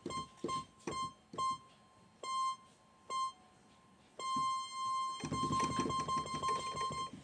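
Electronic beep tone of about 1 kHz, buzzy with overtones, played back as an 'annoying sound'. It sounds as short beeps at irregular spacing, each starting with a click, then holds almost unbroken from about four seconds in, with a low rumble under it near the end.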